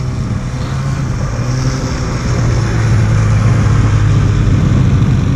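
Snowmobile engines running at idle, a steady low hum that gets somewhat louder about two seconds in.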